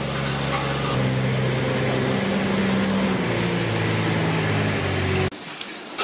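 Small engine of a ride-on feed-pushing barn sweeper with a rotating brush, running steadily. Its pitch drops a little about three seconds in, and the sound cuts off suddenly near the end.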